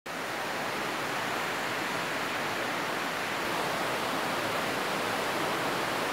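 Steady, even hiss with no other sounds.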